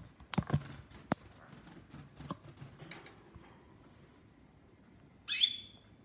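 Pet canary giving one short, sharp call about five seconds in, after a few soft clicks and knocks in the first seconds.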